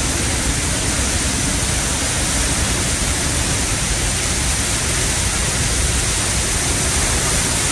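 Niagara Falls heard close up: a loud, steady, even rush of falling water.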